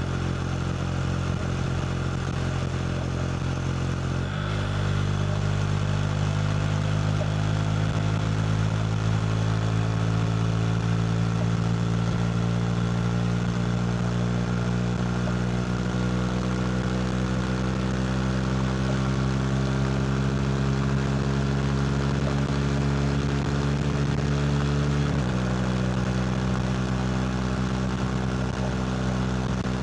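KTM RC 390's single-cylinder engine running through a Two Brothers slip-on exhaust under way. The note steps about four seconds in, climbs slowly as the bike gathers speed, and drops suddenly near the end with an upshift.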